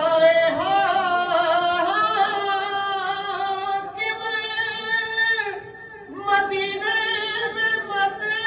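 A single voice singing long, drawn-out melodic lines, pausing briefly a little over halfway through.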